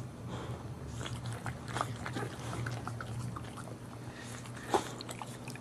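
Boxer mother licking her newborn puppies: a run of wet licks and mouth smacks, with one sharper smack near the end.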